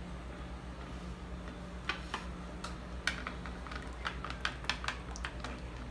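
Metal spoon clicking against a plastic bowl as beaten egg is stirred: a couple of light clicks about two seconds in, then a quick run of ticks until near the end.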